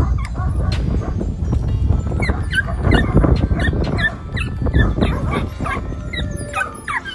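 Several dogs barking and yipping over and over in short, high calls, with some whining among them.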